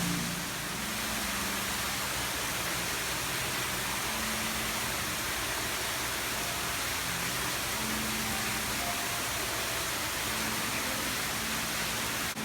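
Steady, even rushing of falling water from a waterfall.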